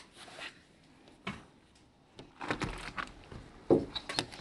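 Scattered knocks and clicks of handling and movement in a small room, the loudest a sharp knock a little before the end.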